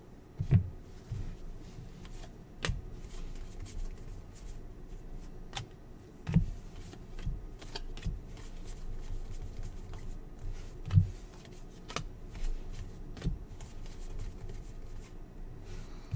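Basketball trading cards being flipped through and sorted by hand: a soft rustle and slide of card stock, with a handful of sharper clicks and taps scattered through.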